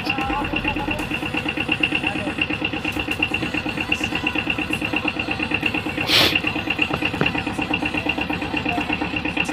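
Small pickup truck's engine idling with a steady, rapid pulse. A single sharp knock about six seconds in.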